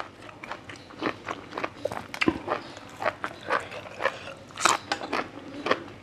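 Close-miked chewing of chewy grilled intestines: wet mouth clicks and smacks at a steady rhythm of about three a second.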